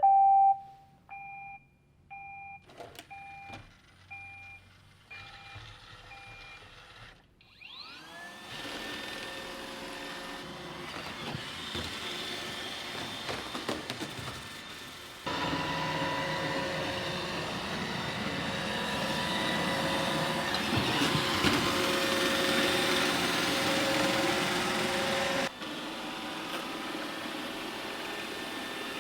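iRobot Roomba 880 robot vacuum: a short rising start-up tune, then a run of evenly spaced beeps. About eight seconds in, its motors spin up with a rising whine and it runs with a steady whirring vacuum noise, which gets louder about halfway through and drops back near the end.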